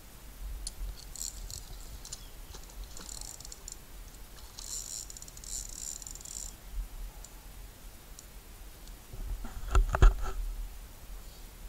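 Carp fishing reel ticking in quick bursts of rapid clicks while a hooked carp is played on a bent rod. A loud knock near the end is the loudest sound.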